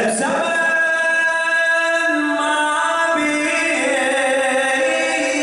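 A radood (Shia eulogy reciter) chanting a qasida unaccompanied into a microphone, drawing out long held notes.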